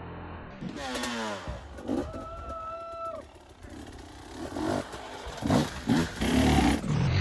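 Enduro dirt bike engine revved in short blips. A rev falls in pitch about a second in and is held steady for about a second, then quick, louder blips come near the end.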